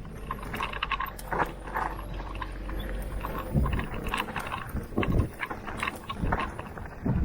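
Mountain bike riding over a dirt trail: tyres crunching and rattling over the ground, with wind rumbling on the microphone for the first half and a handful of heavy thuds from bumps in the second half.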